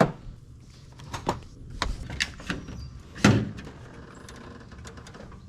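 A series of sharp clicks and knocks, the loudest about three seconds in, over a steady low hum.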